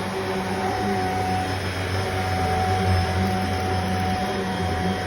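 Vacuum cleaner running steadily: a continuous rush of air with a fixed motor whine and a low hum that wavers a little as it is worked.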